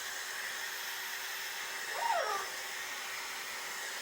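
Steady airflow noise of a running household appliance motor, with one short rising-and-falling vocal sound about two seconds in.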